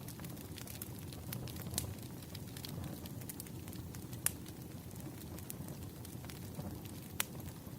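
Wood fire burning: a steady low rumble of flames with irregular sharp crackles and pops from the burning logs, the loudest pops about four and seven seconds in.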